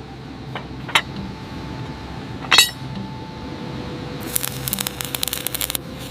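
Hard clinks over a steady low hum: a sharp one about a second in, a louder ringing one near two and a half seconds, then a quick rattle of many clicks in the second half.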